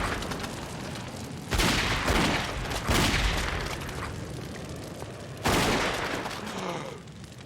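Cartoon explosion sound effects: rigged jack-o'-lanterns bursting to release poison gas, in three sudden booms about a second and a half apart, then a longer gap before the third, each fading over about a second.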